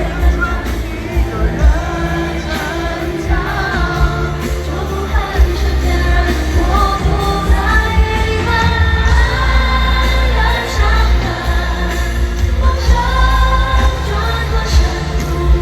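Live Mandopop concert music: a singer over a band with heavy, pulsing bass, recorded from the arena floor.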